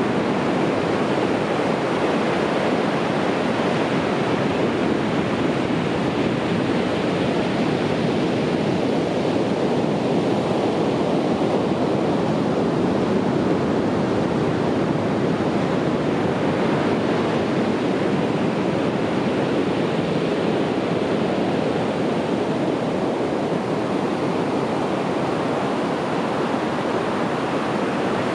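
Ocean surf washing on a beach: a steady, continuous rush of waves with only gentle swells in loudness.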